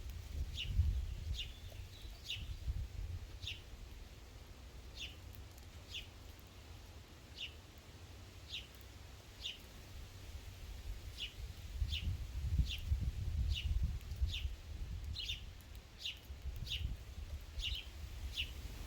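A bird giving short, high chip notes over and over, roughly one or two a second, over a low rumble.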